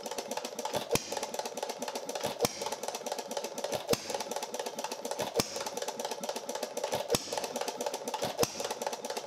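Carlisle & Finch quarter-horsepower hit-and-miss gas engine running: a steady rapid mechanical clatter, with a sharp, louder pop about every one and a half seconds as it fires between coasting strokes.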